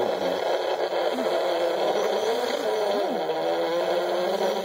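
FPV quadcopter's electric motors and propellers buzzing in flight, the pitch swooping down and back up several times as the throttle changes, most deeply about three seconds in.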